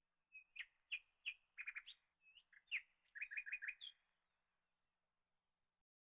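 A small bird chirping faintly: a string of short, high chirps with a quick run of four or five in a row, stopping about four seconds in.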